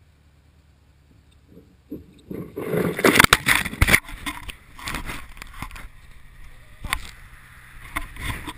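A faint low hum for about two seconds, then loud crunching and scraping of snow against the GoPro, with sharp handling knocks, as the camera is dug out of the snow and picked up.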